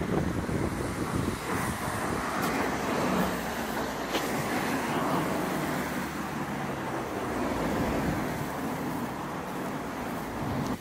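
Steady road traffic on a busy road: cars driving past in a continuous wash of tyre and engine noise.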